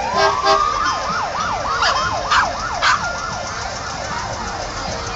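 Emergency vehicle's electronic siren winding up, then switching to a fast yelp that rises and falls about three to four times a second and fades toward the end. A few sharp clicks cut in over it.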